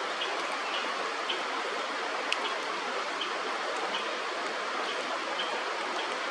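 Steady rush of flowing stream water, with faint short high ticks scattered through it.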